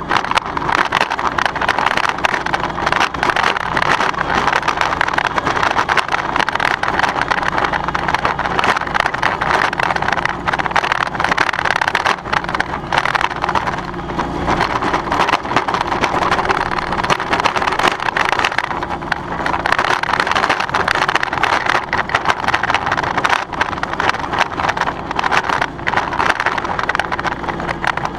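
John Deere X739 lawn tractor running steadily while towing a 48-inch Brinly spike aerator, with a dense, continuous clatter from the aerator's star-shaped tines and frame rattling over bumpy turf.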